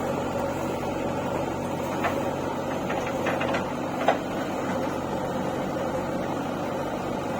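An engine running steadily, with a couple of faint knocks about two and four seconds in.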